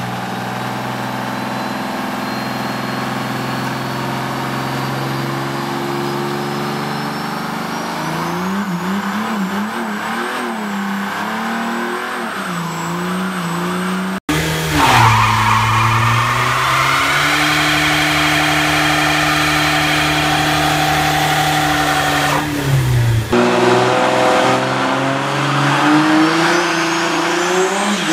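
Diesel Mercedes-Benz sedans doing burnouts: the engines are held at high revs while the rear tyres spin and squeal. The revs wander and rise in the first half. After an abrupt cut about halfway in the sound is louder and holds steady, and near the end a second car revs with rising pitch.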